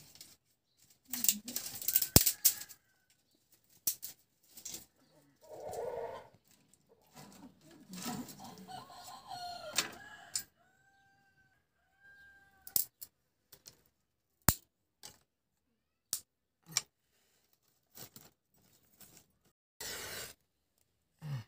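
Chickens clucking, with two short calls about halfway through, over sharp cracks and clatter as dry firewood sticks are snapped and pushed into a clay wood stove. Near the end a match is struck on its box.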